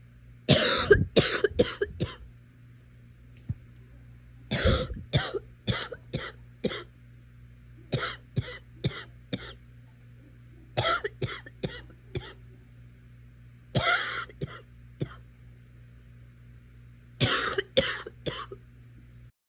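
A girl coughing in six separate fits, each a quick run of about four or five harsh coughs, a few seconds apart, over a faint steady hum.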